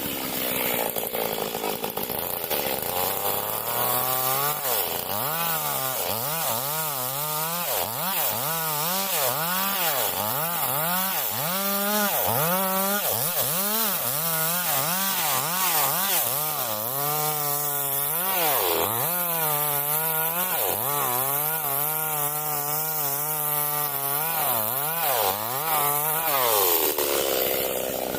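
Stihl MS382 two-stroke chainsaw cutting wood. The engine pitch settles lower for the first few seconds, then rises and falls about once a second as the load comes and goes, and drops back near the end.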